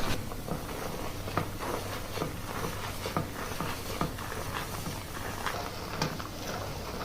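Hair being washed: hands scrubbing and massaging a scalp, making irregular soft taps and crackles about two to three times a second over a faint steady hum.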